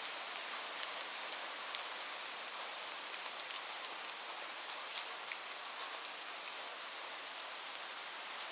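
Light rain falling steadily: an even hiss of rainfall with many separate drops ticking sharply on a hard surface.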